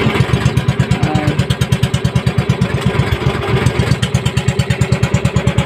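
Outrigger boat's engine running steadily under way, an even fast putter of about ten beats a second.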